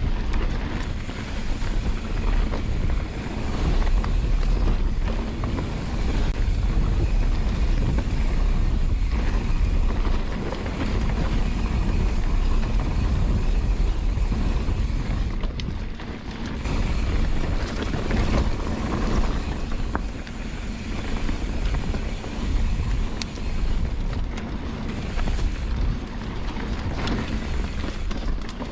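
Riding a mountain bike along a dirt trail: wind rushing over the microphone and the tyres rolling, with a few sharp clicks and rattles from the bike.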